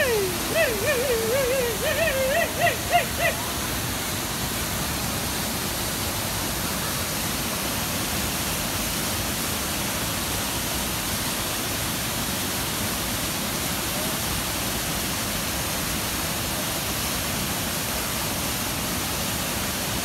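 Steady rushing of falling water from a waterfall, an even unbroken noise.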